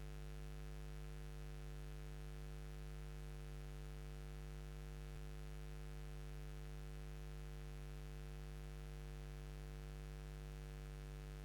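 Faint, steady electrical mains hum with its buzzy overtones, over a light hiss.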